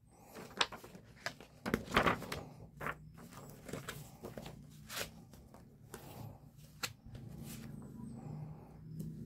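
A large glossy fold-out poster being folded and pressed back into an art book: paper rustling and crinkling with a series of sharp snaps, loudest about two seconds in, then quieter handling of the pages.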